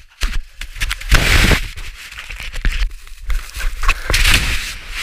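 Avalanche snow churning around a skier being carried in the slide: loud rushing hiss in uneven surges over a low rumble, with many knocks and scrapes of snow against the microphone.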